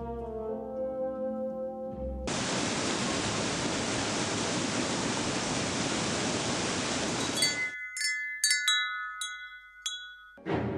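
A held brass chord ends, then the steady rush of a large waterfall starts about two seconds in and cuts off suddenly. A wind chime follows with several quick strikes that ring on.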